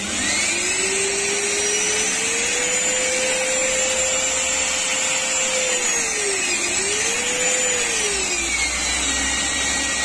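Vacuum cleaner motor switched on and spinning up to a steady whine over a rushing airflow. Its pitch dips and recovers about two-thirds of the way through, then falls and settles lower near the end. The cleaner is running again after a broken wire in its power cord was replaced.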